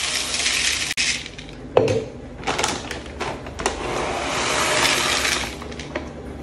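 Green coffee beans poured into a plastic bowl on a scale, a rattling rush of hard beans. It comes twice, with scattered clicks and short rattles between, and the second pour, from a plastic bag, is longer.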